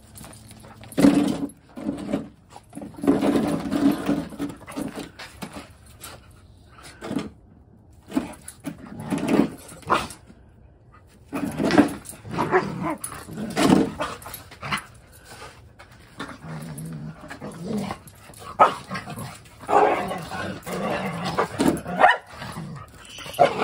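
Two Australian Shepherds play-fighting, growling and barking at each other in repeated bursts with short pauses between.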